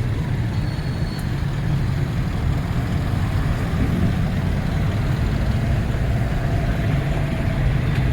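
Road traffic on a busy highway: a steady rumble of car and truck engines and tyres passing, with a faint high engine whine in the second half.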